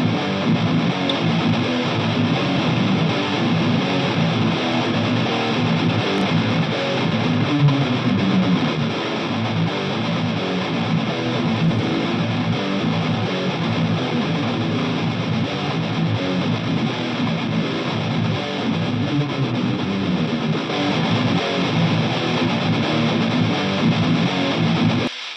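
Electric guitar track playing strummed chords on its own, with no bass or drums under it, heard through a transient designer plugin. The level drops sharply just before the end.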